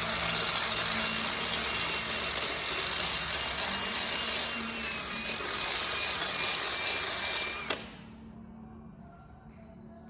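Power drill running continuously while cleaning aluminium parts, a harsh hiss with a steady high whine that sags slightly in pitch, stopping abruptly about eight seconds in.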